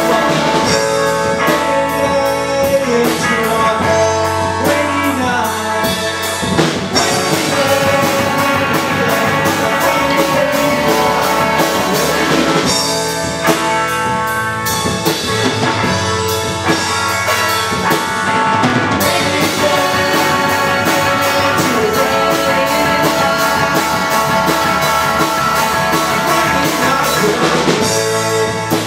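Live rock band playing: hollow-body electric guitar, electric bass, drum kit and electronic keyboard, with a male voice singing.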